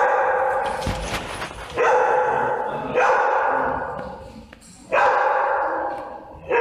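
A dog barking repeatedly, a loud bark every one to two seconds, each one echoing off the hard floor and walls of the playroom.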